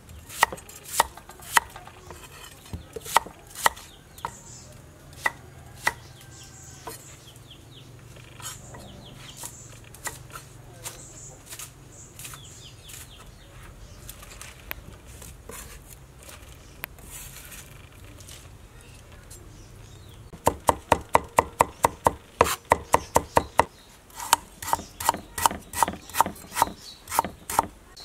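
Cleaver blade knocking on a wooden chopping board as it cuts vegetables: a few scattered cuts in the first seconds, then, from about twenty seconds in, two runs of rapid, even chopping at about four to five strokes a second.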